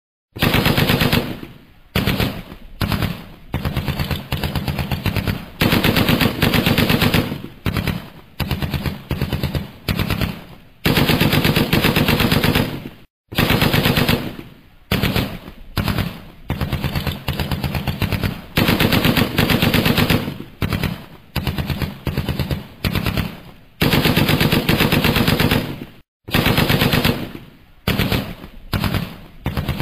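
Repeated bursts of rapid automatic machine-gun fire, each burst a fraction of a second to over a second long, with short pauses between them.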